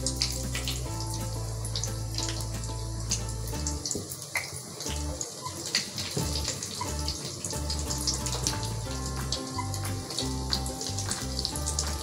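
Breaded fish cutlets deep-frying in hot soybean oil: a steady sizzle thick with small crackles and pops. Background music plays under it.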